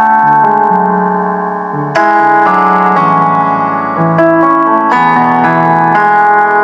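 Piano playing slow, sustained chords as the instrumental backing of a sad rap song, a new chord struck about once a second in the latter part.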